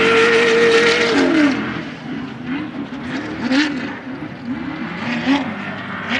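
Off-road race vehicle's engine held at high revs, then dropping in pitch and loudness about a second and a half in, as if passing by. After that the revs rise and fall over and over.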